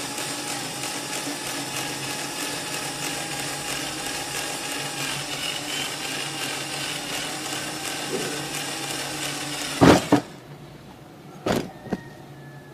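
Cordless drill running steadily as a thin bit slowly bores a small hole in a steel flat bar; the motor stops about ten seconds in. Then three sharp knocks, the first the loudest.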